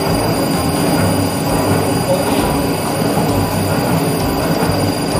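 Electric snack-food extruder for corn chiki puffs running steadily, its motor and belt-driven screw turning with a constant hum and a thin high whine. The machine is being fed at the start of a run, before any extruded product has come out of the die.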